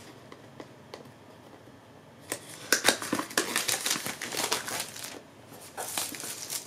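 Plastic shrink-wrap being peeled and crumpled off a cardboard product box, in a run of crackling crinkles that starts a little over two seconds in, with a short pause near the end.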